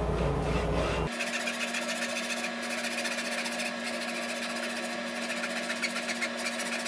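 Wood lathe running in reverse with a steady hum while a double-edged handsaw is held against the spinning wooden turkey call to cut it off its block, the teeth ticking rapidly. About a second in, a heavier low rumble drops away abruptly.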